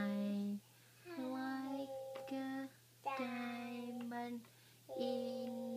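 Young child singing a slow song in held phrases, with short breaths between them.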